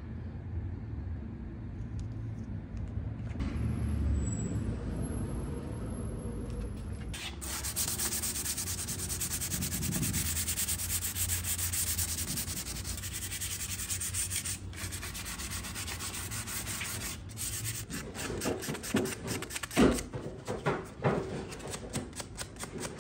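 Fine-grit (220) sanding sponge scuff-sanding the existing finish of a wooden dresser by hand, in quick back-and-forth rubbing strokes. For the first few seconds only a low rumble is heard. The rasping hiss of the sponge starts about seven seconds in and breaks into separate strokes near the end.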